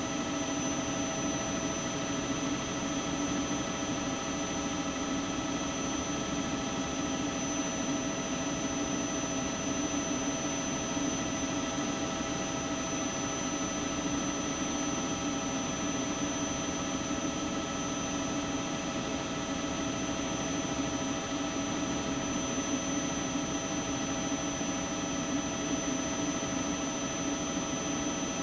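A helicopter's turbine engine running steadily, heard from aboard: an even rushing noise with several constant whining tones.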